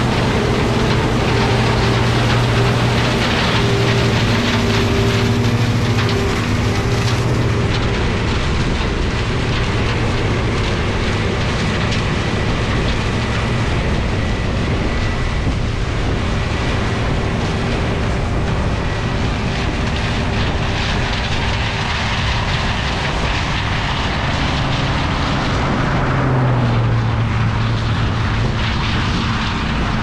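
John Deere 7700 Turbo combine running while harvesting corn: a steady turbo diesel engine hum over a constant rushing noise. The hum is strong at first and weakens after about seven seconds as the combine pulls away, then a low engine hum swells again near the end.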